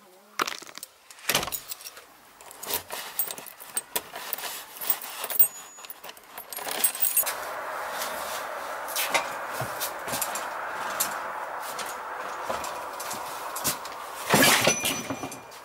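Keys jangling with clicks and rattles from a shed door and a bicycle being wheeled out. A steady hiss joins about seven seconds in, and a louder clatter comes near the end.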